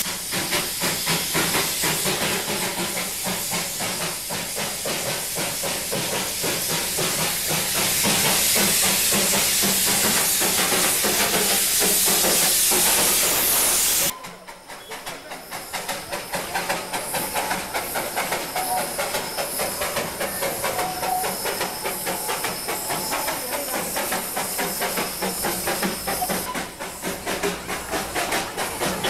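Darjeeling Himalayan Railway narrow-gauge steam locomotive hissing loudly with escaping steam. About halfway through the sound cuts abruptly to a quieter, steady run of exhaust beats from the locomotive working uphill.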